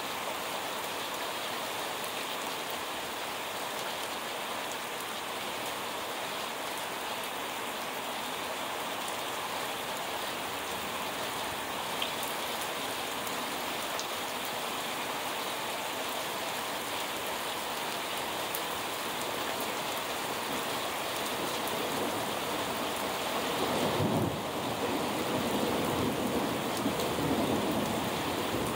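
Steady rain falling during a thunderstorm, with a low rumble of thunder swelling in near the end.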